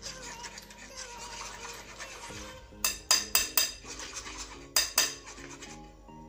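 Wooden spoon scraping crème anglaise through a fine metal mesh sieve, then a run of sharp ringing clinks as the sieve and spoon knock against the glass bowl: four in quick succession about three seconds in, two more near five seconds.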